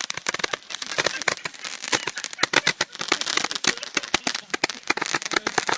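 Fireworks crackling: a dense, irregular stream of sharp pops with no break.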